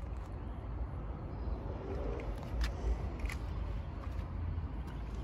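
Low, steady outdoor rumble of street traffic, with a few faint clicks.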